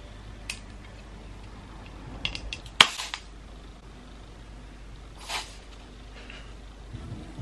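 Aerosol spray can being handled: small clicks and taps at its cap and nozzle, a sharper click about three seconds in, and a brief hiss a couple of seconds later.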